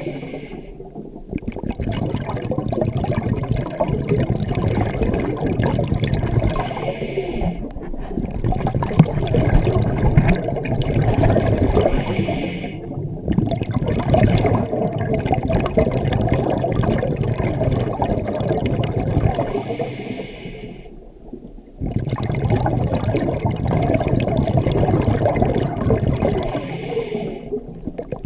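Scuba diver breathing underwater through a regulator. About every six to seven seconds there is a short hiss of inhalation, a brief pause, then a long rush of exhaled bubbles.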